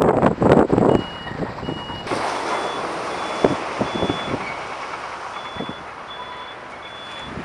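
Backup alarm of heavy construction equipment beeping at an even rhythm, roughly one beep every two-thirds of a second, over the steady noise of machinery. A loud, rough noise fills the first second.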